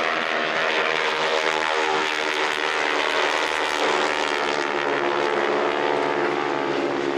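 Engines of a four-plane formation flying a pass overhead: a steady, loud drone with many overtones that slowly shift in pitch.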